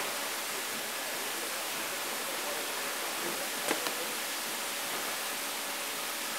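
Steady rushing hiss of water spraying inside a vegetable-bunch washing machine, with one short click about four seconds in.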